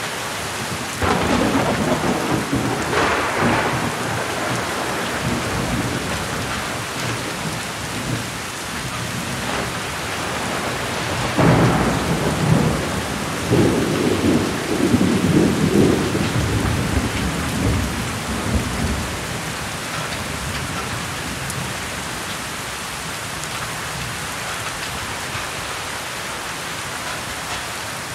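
Heavy monsoon rain falling steadily, with strong wind gusting against the microphone in loud low rumbling surges about a second in and again from about 11 to 19 seconds in.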